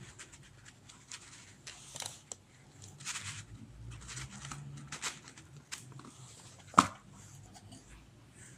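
Handling noises of a black bead necklace being moved about: light rustling and scattered small clicks, with one sharp click about two-thirds of the way through.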